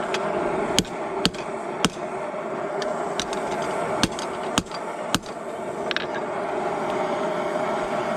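Hammer striking hot steel tongs on an anvil: six sharp blows in two sets of three, about half a second apart. A gas forge's burner runs steadily underneath.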